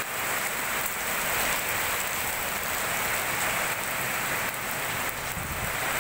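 Heavy rain falling steadily on a paved street, an even, unbroken hiss.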